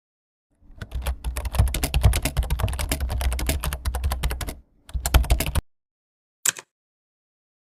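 Computer keyboard typing sound effect: a fast, dense run of key clicks lasting about four seconds, then a shorter burst of typing and a single click near the end.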